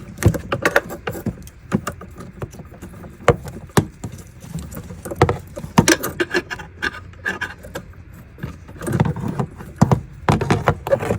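Irregular sharp metal clicks, clinks and rattles of hose clamps and hand tools being worked in an engine bay.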